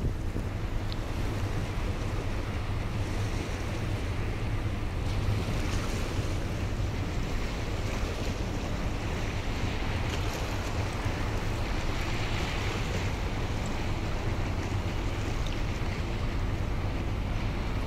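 Wind on the microphone and waves washing on the waterway, over a steady low drone from a passing ro-ro ferry.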